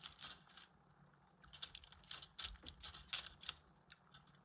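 Crunchy chewing of a Popeyes fried chicken sandwich close to the microphone: a short run of crisp clicks and crunches at the start, then a longer run in the middle.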